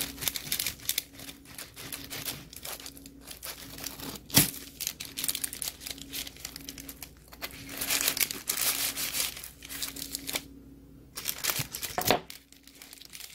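A knife cutting through a crisp-toasted croque monsieur on baking paper: irregular crunching of the crust and crinkling of the paper, with one sharp knock about four seconds in.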